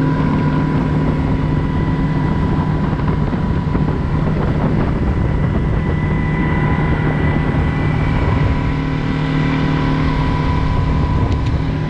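Yamaha 50 hp outboard motor pushing a skiff at steady cruising speed: an even engine drone with a constant pitch, over a rush of water and wind noise.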